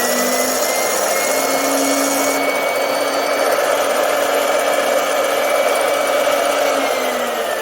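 Motor of a small electric round-blade fabric cutting machine running freely at high speed, freshly cleaned and regreased. Its whine climbs to speed in the first second or two, holds steady, then falls away near the end as the motor winds down.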